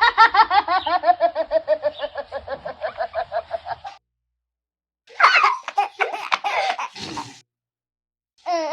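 A baby laughing: a long string of quick, rapid-fire giggles that slowly drops in pitch over about four seconds, then after a brief gap a second, shorter burst of laughter.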